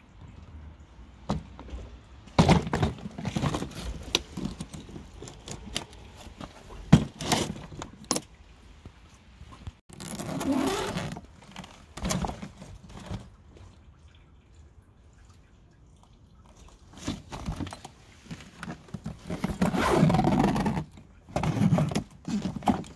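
A hard-shell plastic suitcase being handled and opened: irregular knocks, clicks and scrapes from its shell, wheels and fittings, with longer stretches of scraping and rustling around ten seconds in and again near the end.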